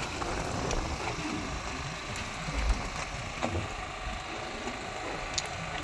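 A fishing boat's engine running steadily, with a few short knocks and clicks over it and one louder low thump partway through.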